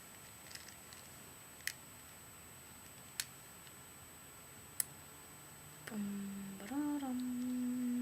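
A few sharp, isolated clicks from a Rubik's Cube's layers being twisted by hand. From about six seconds in, a voice hums long held notes, stepping up in pitch partway.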